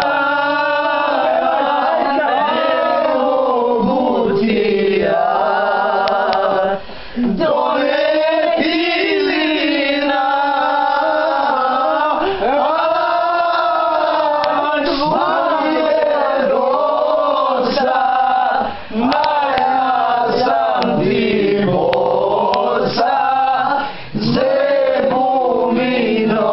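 A group of men singing a song together loudly at full voice, with a few short breaks for breath.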